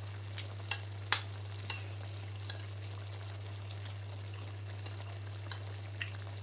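Metal fork clinking and scraping against a china bowl of rice: several sharp clinks in the first two seconds, then a few sparser ones, over a steady low hum.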